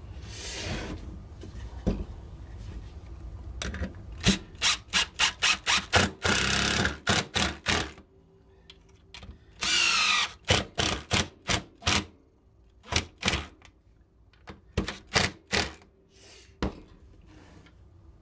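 Cordless impact driver sinking 3.5-inch stainless steel screws through a cedar keel into a wooden decoy body, in many short trigger bursts, with two longer runs at a rising whine. Softer handling knocks come first.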